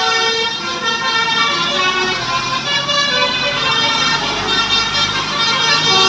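A bus's multi-tone telolet horn playing a melody, its several trumpets stepping from note to note without a break. Passing road traffic runs underneath, with an engine growing louder in the middle.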